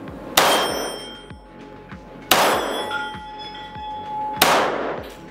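Three 9x18 mm Makarov pistol shots about two seconds apart, slow deliberate fire, each echoing in an indoor range and followed by a short metallic ringing.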